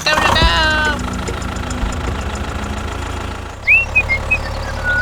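A small engine running steadily with a rapid, even knock. A short bleat-like call sounds at the start, and a few short whistled chirps come near the end.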